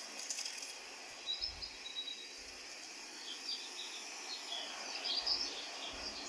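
Birds chirping in short, high calls over a steady outdoor hiss, the calls coming in a brief cluster early and a busier run toward the end.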